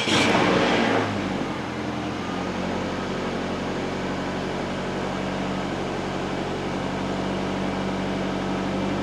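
Nissan Altima engine just catching on start-up with a brief flare, then settling within about two seconds into a steady idle. The engine has stored a multiple-cylinder misfire code (P0300), though to the mechanic the idle does not sound like much of a misfire.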